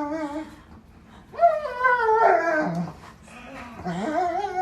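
A dog giving long, drawn-out whining calls, three in a row, each wavering in pitch, the middle one falling away at its end.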